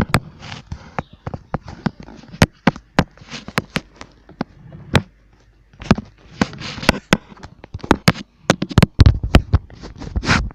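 Handling noise from hands moving the camera and a fidget toy: a string of irregular sharp knocks and clicks with rustling in between.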